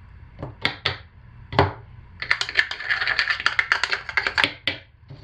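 Small plastic colorant bottle being shaken and tapped over a plastic pitcher. There are a few single clicks, then about two seconds of rapid clattering taps that stop shortly before the end.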